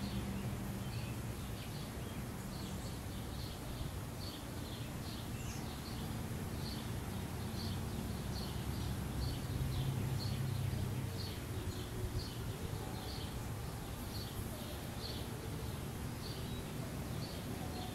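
Outdoor ambience: a small animal's high chirp repeated about twice a second, over a steady low rumble that swells briefly midway.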